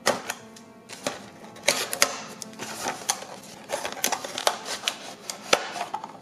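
Small cardboard box being opened and handled by hand: flaps flexing and snapping, card rubbing, and a run of irregular sharp clicks and scrapes.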